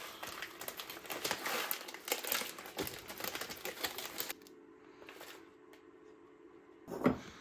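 Foil-plastic instant-noodle seasoning sachets crinkling and crackling as they are torn open and squeezed out over a bowl. The crinkling stops suddenly about four seconds in, leaving a faint steady hum, and a single loud knock comes near the end.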